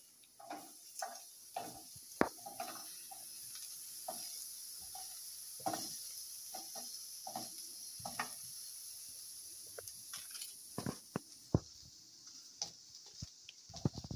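Chopped onion pieces pulled apart by hand and dropped onto a ridged grill pan, making scattered taps and crackles over a light steady sizzle.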